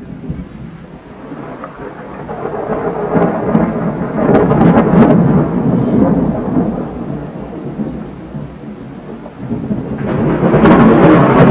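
Thunder rolling in two long rumbles during a thunderstorm. The first builds, peaks with sharp cracks about halfway through, then fades; a second loud roll with crackling swells up near the end. Rain falls steadily throughout.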